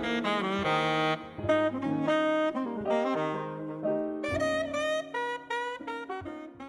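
Background jazz music led by saxophone, with piano, fading out near the end.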